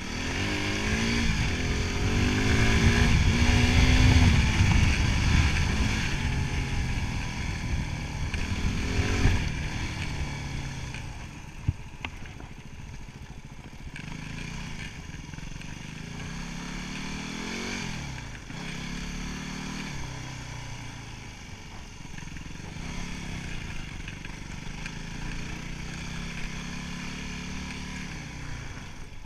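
Yamaha WR250R's 250 cc single-cylinder four-stroke engine revving and pulling through the gears while riding. It is loudest in the first ten seconds, then runs quieter with several shorter rises in revs, and there is a single sharp click about twelve seconds in.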